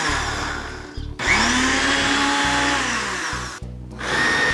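Black & Decker Fusion Blade blender running on a thick dip, its motor stopping briefly about a second in and again near the end, then starting up again.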